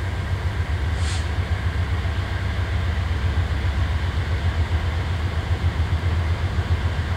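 Diesel engines of a lash-up of GE Dash 9-44CW locomotives working under throttle, a deep pulsing rumble that grows louder as the loaded train approaches.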